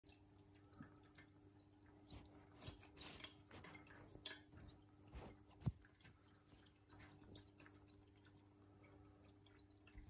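Faint trickle and drip of a small electric pet water fountain, its thin streams falling into the steel bowl over a low steady pump hum, with a kitten lapping in quick irregular licks. The licks bunch together in the first half and end with one sharper click a little past halfway.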